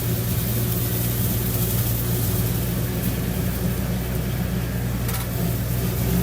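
Tractor engine running steadily while driving a fast-spinning implement: a constant low drone.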